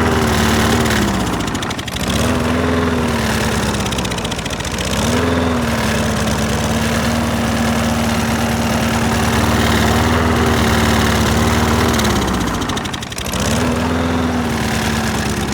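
Small lawn mower engine running at speed. It bogs down and recovers three times as carburetor cleaner is sprayed into its intake, with the engine pitch sagging and then climbing back each time.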